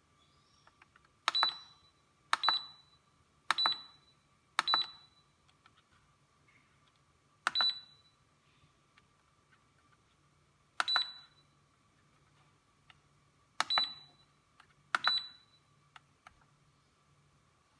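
Turnigy hobby LiPo battery charger giving a short high beep with each button press as its menu is stepped through: eight beeps at uneven intervals, over a faint steady hum.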